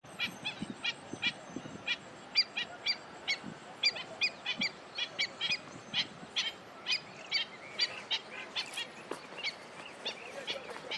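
Birds calling: a dense run of short, pitched calls, about two or three a second, with several birds overlapping.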